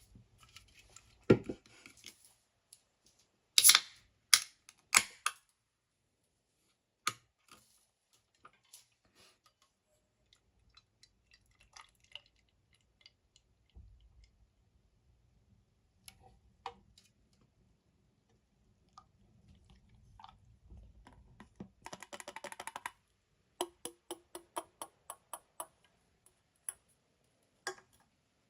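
Scattered sharp clicks and knocks in a small room, the loudest a handful of hard knocks about four to five seconds in. About three quarters of the way through comes a short dense rustling hiss, followed by a row of quick ticks, two or three a second.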